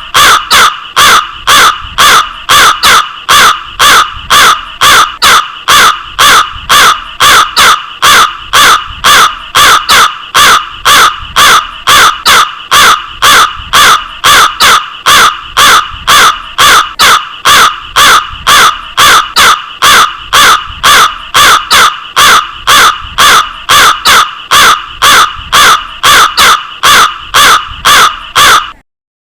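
Crow cawing over and over in an even, unbroken series of about two caws a second, each caw alike. The calls stop abruptly near the end.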